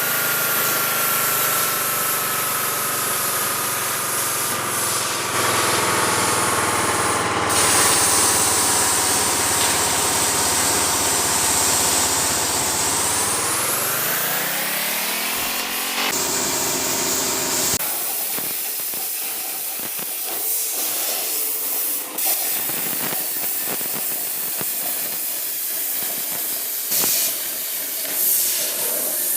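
CNC cutting machine running on steel: a steady hiss of the cut under a motor whine. The whine slowly falls in pitch, then rises quickly about 13 seconds in. It stops abruptly, leaving mostly hiss with a few clicks.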